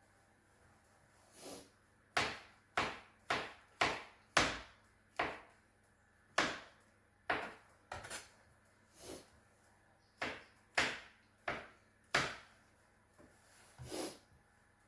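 Irregular series of sharp knocks from kitchen utensils at work, about a dozen and a half, slightly more than one a second, each with a short ringing tail.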